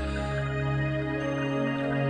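Background music: soft new-age style music with long held tones.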